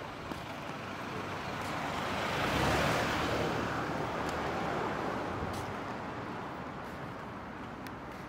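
A vehicle driving past: its tyre and engine noise swells to a peak about three seconds in, then slowly fades away.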